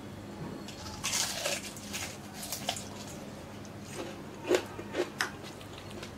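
Crispy fried chicken being handled on a ceramic plate: a short crackle of the crust about a second in, then a few light clicks and soft squishes as a piece is dipped in ketchup, over a faint steady hum.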